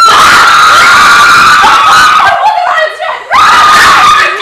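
Girls screaming, very loud and high-pitched, in two long screams: the first breaks off a little over two seconds in, and the second starts about a second later.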